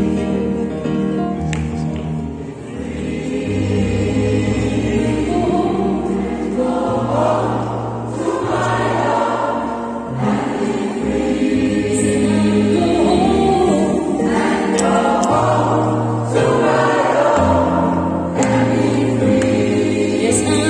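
Gospel choir singing in harmony, men's and women's voices together, accompanied by an electronic keyboard holding low bass notes that change every second or two.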